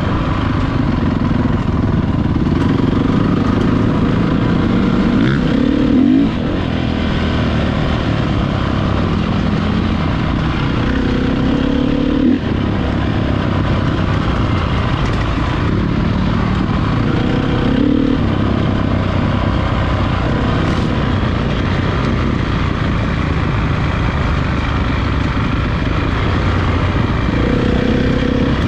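Motocross bike engines running hard and revving, the pitch climbing and then dropping away several times.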